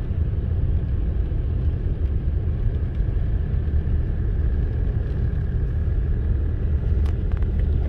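Steady low rumble of a car driving on a wet road, heard from inside the cabin, with a single click near the end.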